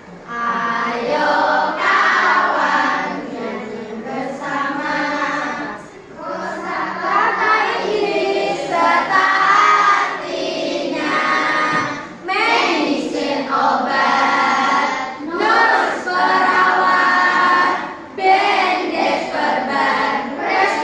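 A class of young children singing together in unison with a woman's voice, in phrases separated by short breaks.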